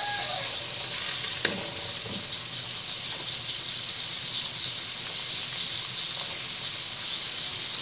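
Canned tuna chunks frying in melted butter in a wok, a steady sizzle, with a couple of knocks of a wooden spatula against the pan in the first two seconds.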